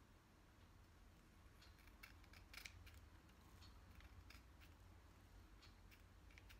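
Scissors snipping through a small bunch of hair ends: a series of faint, short, crisp snips, clustered in the first half and loudest about two and a half seconds in, with a few more near the end.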